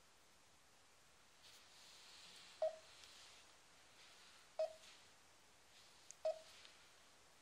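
Garmin Dezl 760 LMT sat-nav giving three short mid-pitched beeps, each with a click and about two seconds apart: the touchscreen's tap tones as its on-screen buttons are pressed.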